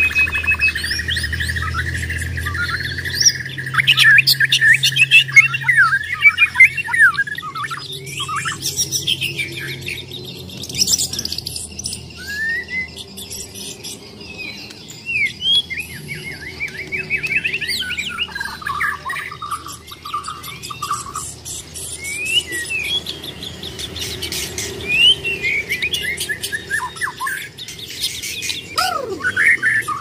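White-rumped shama (Bornean 'murai batu') singing its fighting song: a rapid, varied run of loud whistles, trills and chattering notes, broken by short pauses.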